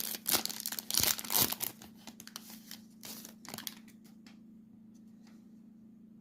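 Foil wrapper of a Panini Prizm trading card pack being torn open and crinkled, busiest in the first two seconds and tapering off about four seconds in. A steady low hum runs underneath.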